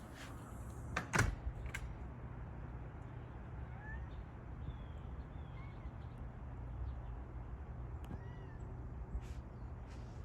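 Faint outdoor background: a steady low rumble, a few sharp clicks or knocks about a second in, and several short, faint chirps scattered through the rest.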